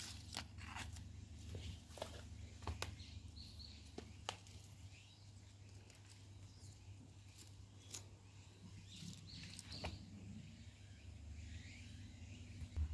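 Faint outdoor ambience: a steady low rumble with scattered light clicks and a few short bird chirps.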